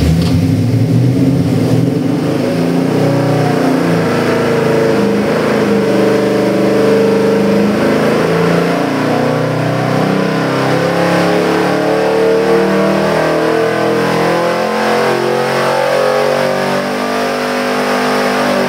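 A 454 cubic-inch big-block Chevy V8 crate engine on an engine dynamometer, making a full dyno pull. After a couple of seconds near idle it climbs in one slow, steady sweep to about 5,500 rpm, its pitch rising throughout.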